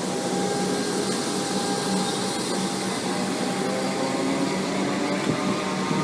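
Comeng electric suburban train pulling out of the station: a steady rushing run with faint tones from the motors slowly rising in pitch as it gathers speed.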